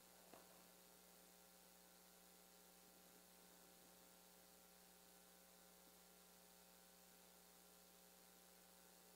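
Near silence: a faint steady electrical hum with light hiss, and one faint click about half a second in.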